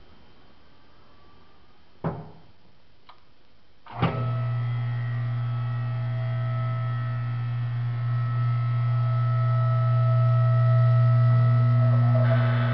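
Southworth LS2-36 lift table's electric hydraulic pump motor starting about four seconds in after a short knock, then running with a steady hum as the table rises. The sound grows slightly louder and harsher near the end.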